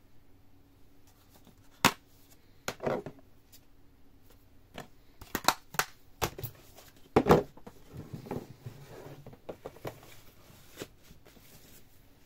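Plastic DVD cases handled against a cardboard box set: a string of clicks, taps and light scrapes, the sharpest click about two seconds in and the loudest clatter about seven seconds in.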